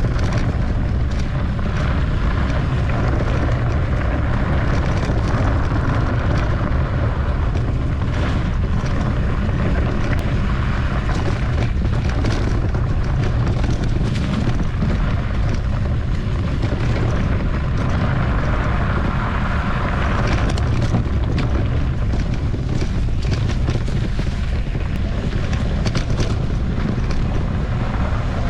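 Wind buffeting the microphone of a camera on a mountain bike riding a rough trail, a steady low rumble, with frequent short knocks and rattles from the bike over the ground.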